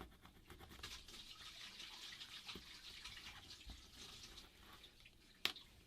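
Faint scratchy scraping of a small tool working old adhesive off a phone's frame, with one sharp tick near the end.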